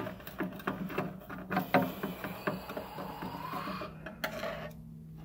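Rapid, irregular clicks and light knocks of parts and tools being handled, several a second, thinning out near the end, over a steady low hum.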